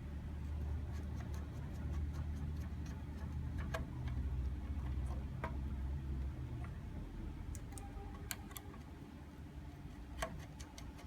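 Hand wiring at a solar pump controller's terminal block: scattered light clicks and taps at irregular intervals, over a low hum that eases off about two-thirds of the way in.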